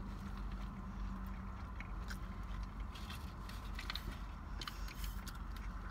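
Close-up chewing and biting of a double cheeseburger: soft wet mouth clicks scattered throughout, over a low steady hum.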